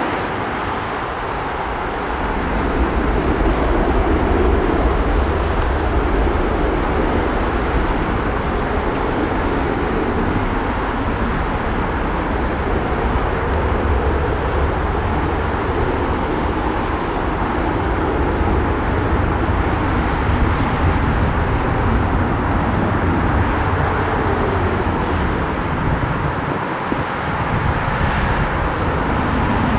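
Steady, loud engine and traffic noise with a deep low rumble: jet airliner engine noise blended with road traffic.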